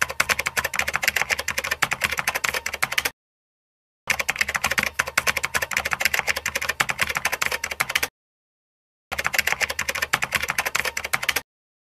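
Sound effect of rapid typing on a computer keyboard: fast clicking in three runs, each cutting off to dead silence, the last run shorter.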